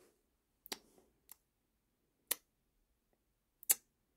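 Four light, sharp clicks and taps spread over a few seconds, the loudest near the end: a plastic action figure being set down and turned on a wooden tabletop.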